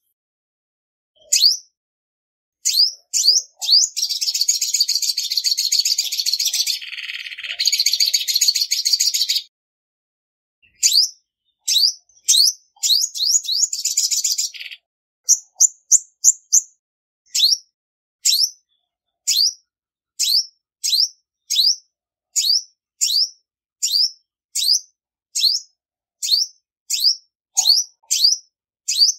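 Female olive-backed sunbird calling: sharp, high, down-slurred chirps, broken by a long rapid chattering trill from about four to nine seconds in and a shorter one around thirteen seconds, then evenly repeated chirps a little over one a second.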